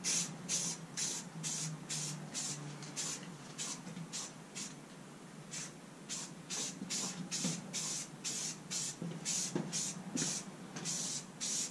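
Aerosol spray-paint can spraying in short repeated bursts, about two a second, with a pause of about a second near the middle.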